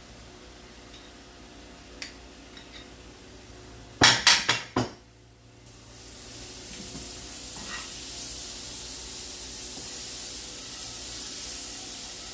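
Four quick clattering knocks of a utensil against the skillet, then butter sizzling in the hot skillet, the sizzle building over a couple of seconds and then holding steady.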